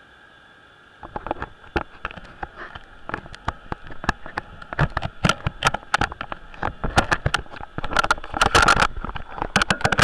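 Close splashing as a swimmer reaches the pool wall beside the camera: water slapping and dripping onto it in quick, irregular clicks that start about a second in and grow denser. Near the end come knocks and scrapes of the wet camera being handled.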